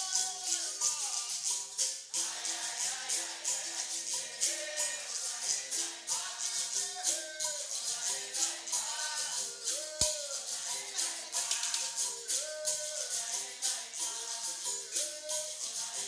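Capoeira roda music: berimbaus with caxixi shakers and a pandeiro keep a steady rhythm under sung melody lines. A single sharp click comes about ten seconds in.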